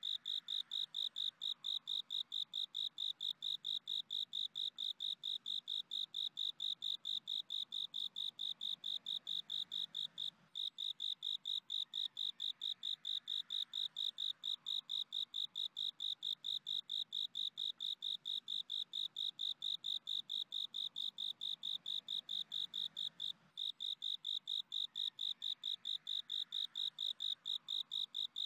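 Crickets chirping: a high, even chirp repeated about three times a second without letup, breaking off for a moment twice.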